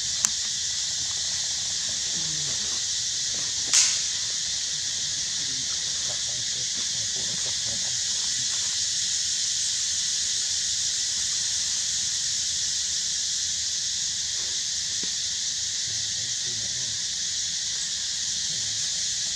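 Steady high-pitched hiss of an insect chorus, with a sharp click just after the start and a louder one about four seconds in.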